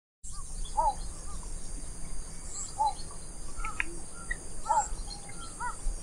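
Outdoor natural ambience: a bird giving short arched chirping notes every one to two seconds, over a steady high insect buzz and a low background rumble.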